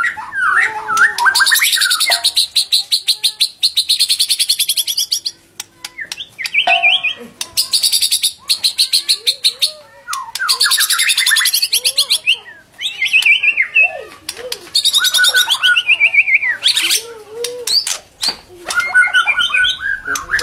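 White-rumped shama (murai batu) singing: a varied song of clear whistled phrases alternating with several long runs of fast, high repeated notes.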